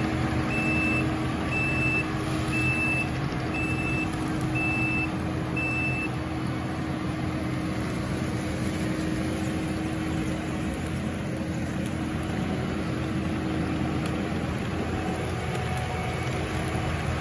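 Kubota SVL95-2 compact track loader running steadily under load as it moves. Its reversing alarm beeps six times, about once a second, over the first six seconds, then stops as the loader stops backing up.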